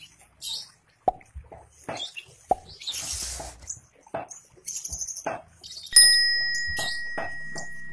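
Long-tailed shrike calling in short, sharp notes with a harsh rasp about three seconds in. At about six seconds a single metallic ding rings out and fades slowly.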